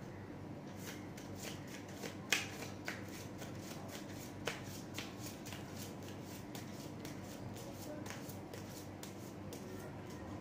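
Tarot cards being shuffled by hand, slipped from one hand into the other: a run of quick, crisp card clicks, with a couple of sharper snaps about two and a half and four and a half seconds in.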